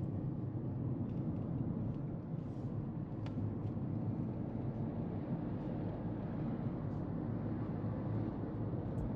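Steady low road and engine rumble of a moving car, heard from inside its cabin.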